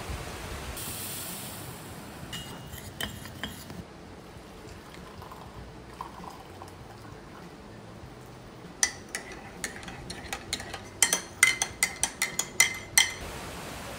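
A metal spoon stirring hot milk tea in a ceramic mug, clinking against the sides in a quick run of ringing clinks over the last five seconds, loudest near the end. Before that, a steady hiss of heavy rain, and a few lighter clinks about two to three seconds in.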